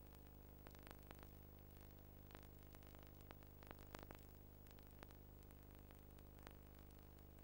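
Near silence: a faint steady electrical hum with scattered soft clicks, the empty soundtrack of a transferred silent home movie.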